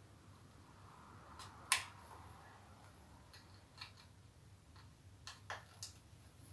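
Scattered sharp plastic clicks and taps from a car alarm control unit and its wiring-harness connectors being handled, with the loudest click just under two seconds in and several lighter ones after it.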